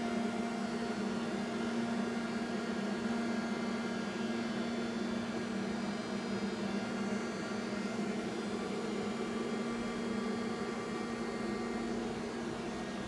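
Steady hum of a powered-up but idle AXA VARIO vertical machining center: a constant drone with a faint steady whine of higher tones above it.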